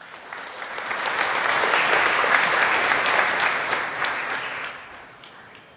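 An audience applauding in a large hall, building up, then dying away about five seconds in.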